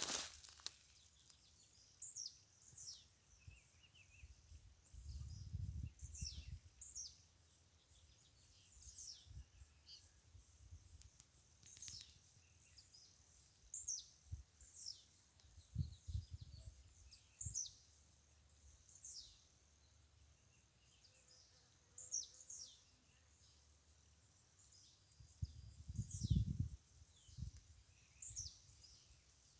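A bird calling over and over with short, high notes that slide downward, one every second or two, with a few low rumbles in between.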